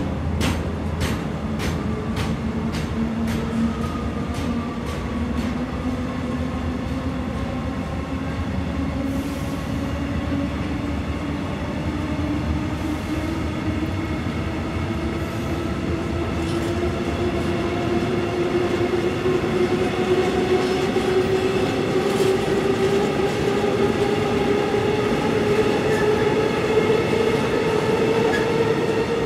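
Electric train pulling away, its motor whine rising slowly and steadily in pitch as it gathers speed, over a steady rumble of the wheels. A run of sharp clicks fades out in the first few seconds.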